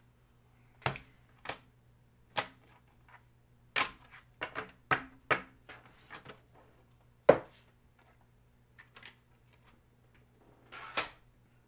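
Irregular sharp clicks and taps, about fifteen, some close together in twos or threes, the loudest about seven seconds in, over a faint steady low hum.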